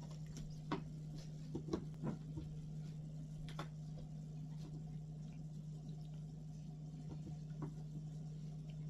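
A steady low hum, with a few faint, light clicks and rustles from hands setting dandelion flowers onto a salad in a wooden bowl.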